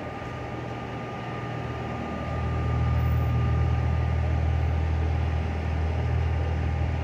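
A vehicle engine idling with a steady low hum that grows louder about two seconds in, with a faint steady whine above it.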